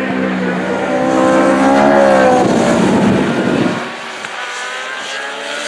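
Racing motorcycles passing close at high revs, engine pitch rising as they accelerate out of a corner; a little before four seconds in the sound drops to fainter, more distant bikes accelerating.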